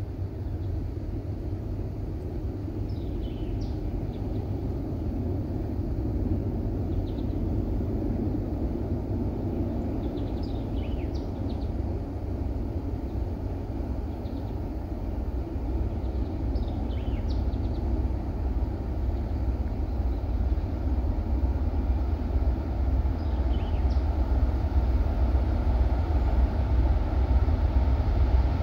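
Low rumble of the diesel locomotives of an approaching freight train, still out of sight, growing slowly louder. The consist is BNSF GE power, one Evolution-series unit and two Dash 9-44CWs. Birds chirp briefly a few times over it.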